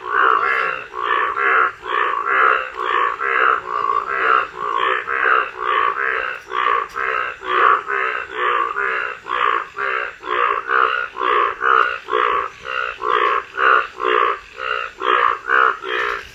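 Frog calling: a steady, rapid series of short croaks, about three a second.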